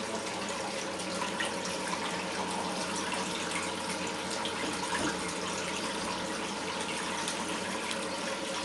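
Steady rush of water, as raw sewage backs up from the sewer and floods the room.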